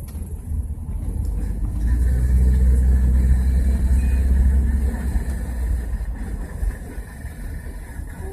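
Engine and road rumble heard from inside a moving vehicle, a deep steady drone that swells louder for a few seconds in the middle and then eases off.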